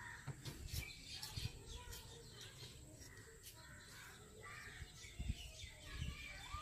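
Faint bird calls in the background, with a few soft taps and ticks as semolina is poured from a clay cup into a clay bowl.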